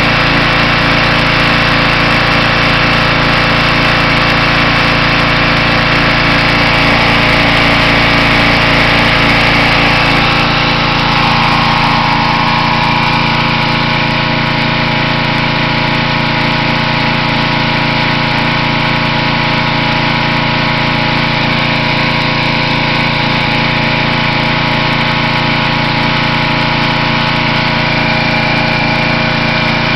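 Simoniz 2350 PSI gas pressure washer's small engine running steadily, with a shift in tone about ten seconds in.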